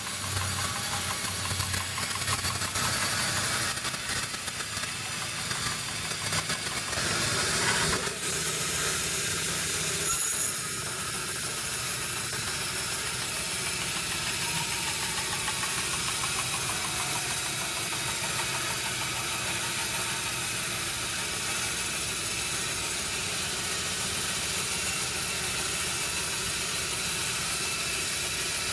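Sawmill machinery running: louder and busier at first, with a surge about eight seconds in, then settling from about ten seconds into a steady, quieter hum.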